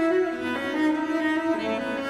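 Cello and double bass playing a fugue duet: two bowed lines moving note by note together.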